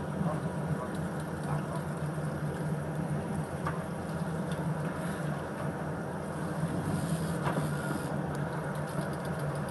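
Fishing boat's engine idling, a steady low hum, with a couple of faint knocks.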